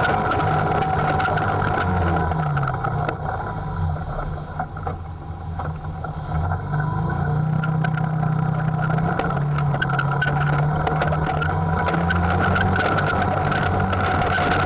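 Textron Havoc X UTV running along a rough dirt trail, heard from on board: the engine note eases off for a few seconds around the middle as the throttle is lifted, then pulls again. Scattered clicks and rattles from the rough ground.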